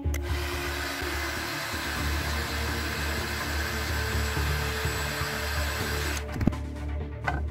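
Electric heat gun blowing steadily, drying the painted resist on the steel axe head. It cuts off about six seconds in, followed by a single knock.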